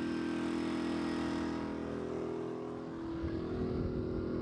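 A motor running steadily, a low hum of several held tones that shifts a little about three seconds in.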